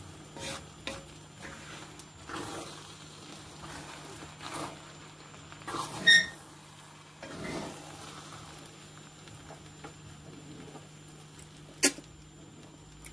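A wooden spoon stirring and lifting jollof rice in a pot, with soft scraping and shuffling of the rice against the pot over a low steady hum. A short squeak comes about six seconds in, and a sharp tap near the end.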